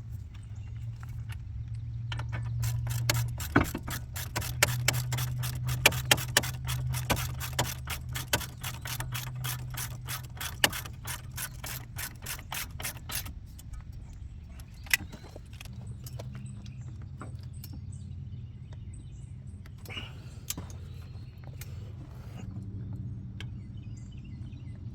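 Hand ratchet clicking rapidly as bolts are run in on the brake assembly, a quick even string of clicks that stops about halfway through, then a few scattered clicks and knocks. A steady low hum runs underneath.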